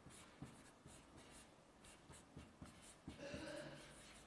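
Faint scratching of handwriting: many short strokes in quick succession, with a slightly longer, louder scrape about three seconds in.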